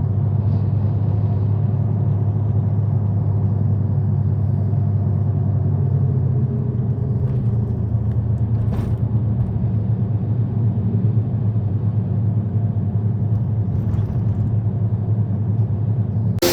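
Steady low drone of a car or van in motion, heard from inside the cabin: engine and road noise with no change in pace.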